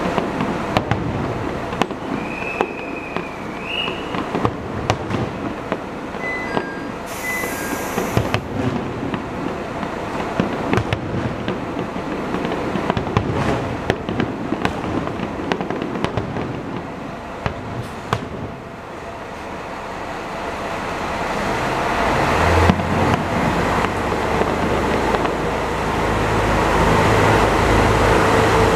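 Fireworks going off in a quick run of bangs and crackles. In the last third, a Kanto Railway KiHa 0 series diesel train pulls out of the station, its engines and wheels growing steadily louder as it accelerates.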